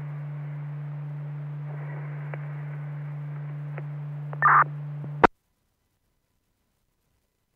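Fire radio channel on a scanner, opened by a transmission with no voice: a steady low hum over hiss, a brief louder crackle about four and a half seconds in, then a sharp squelch click about five seconds in as the carrier drops, and silence.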